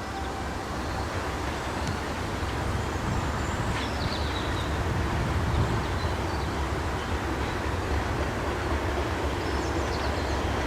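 Diesel locomotive running under power on a train, a steady low engine and rail noise growing slowly louder as it approaches.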